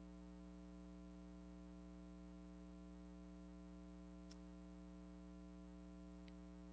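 Near silence with a steady electrical mains hum, and one faint click about four seconds in.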